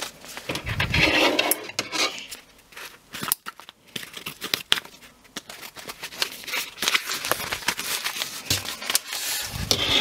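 A padded paper postal envelope being cut open with scissors and handled: irregular snips and clicks with crinkling and rustling of the paper.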